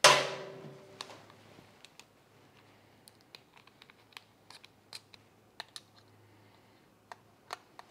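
A magnetic hook snaps onto the metal top of a glass display cabinet with one sharp clack and a brief ring. Scattered small clicks and taps of plastic and metal follow as the light bar and its hooks are handled.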